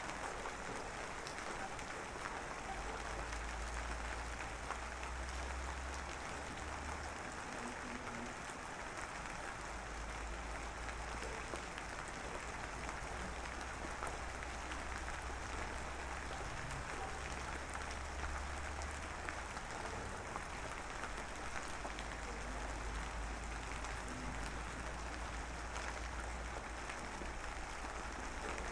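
Drizzling rain: a steady, dense patter of fine drops, with a low rumble underneath that comes and goes.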